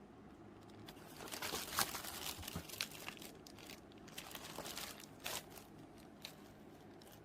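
Close crinkling and rustling from something being handled, with a string of sharp little clicks. It is busiest from about a second in and dies away about a second before the end.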